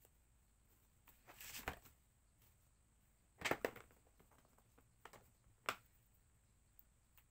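Small objects being handled on a work surface: a brief rustle about a second in, then a quick cluster of light knocks, followed by two more single knocks.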